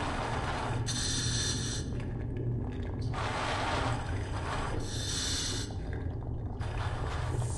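Scuba diver breathing through a full-face mask regulator underwater: hissing inhalations alternate with rushes of exhaled bubbles, a few breaths in turn, over a steady low hum.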